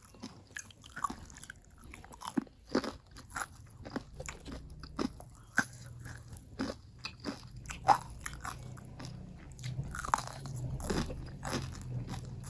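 Close-miked eating: crisp bites and chewing of crunchy food, a quick series of sharp crackles a few times a second, with a low steady hum growing in under it during the second half.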